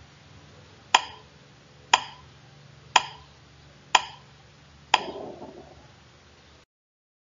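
Countdown timer sound effect: five sharp ticks, one each second, the last trailing off into a short ring, then the sound cuts out abruptly.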